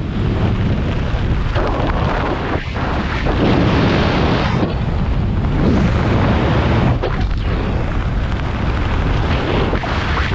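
Freefall airstream rushing over the camera microphone in a loud, steady wind blast, buffeting and rumbling heavily in the low end.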